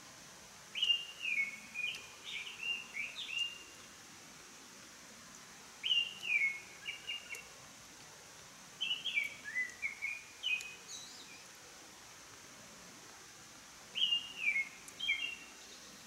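A small songbird singing: four phrases of clear, down-slurred whistled notes, each about one and a half to two and a half seconds long, a few seconds apart, over a steady background hiss.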